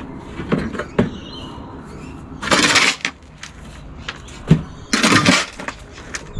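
A shovel scooping garden soil from a metal trailer bed and tipping it into a wheelbarrow: two scraping shovelfuls about two and a half seconds apart, with a few sharp knocks of the blade on metal.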